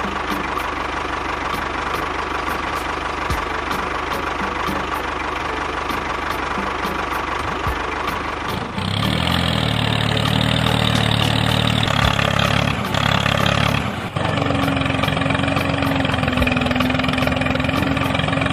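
Tractor engine running steadily; about nine seconds in it gets louder, with a deeper, more even drone.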